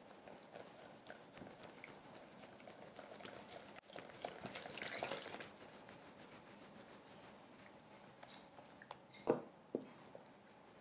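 Water being poured in a stream from a glass measuring jug into a glass bowl of liquid laundry-detergent mix while it is stirred with a silicone spatula; the pour grows louder around the middle. Near the end comes a sharp knock, the loudest sound, then a lighter one.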